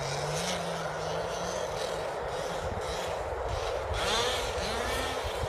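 Two-stroke petrol engine of a Kraken SX5 1/5-scale RC buggy with a VRC rear-mount pipe, running at a distance: a steady note at first, then from about four seconds in revving up and down in quick sweeps and growing slightly louder.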